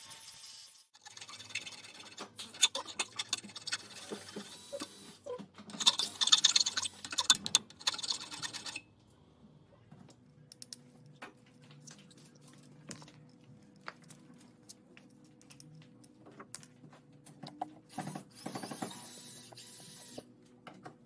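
Irregular clicks, taps and scraping of a hand tool being handled and worked, busy for the first nine seconds, then only sparse faint ticks, with a short louder burst of handling a little after eighteen seconds.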